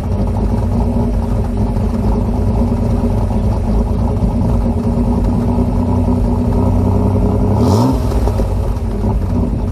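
1987 Pontiac Fiero's engine and exhaust idling steadily, with one quick rev about eight seconds in that rises and drops back to idle.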